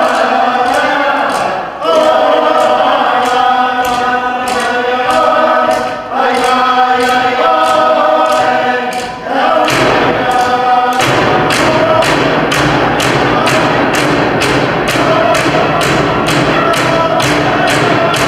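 Iñupiaq drum-dance song: a group of voices chanting together over steady frame-drum beats, about two to three strokes a second. About ten seconds in, the drumming grows heavier and the singing blends into a fuller, denser sound.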